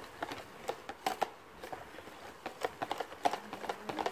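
A whisk knocking against the side of a container as all-purpose cream and condensed milk are mixed: quick, irregular clicks and taps, several a second.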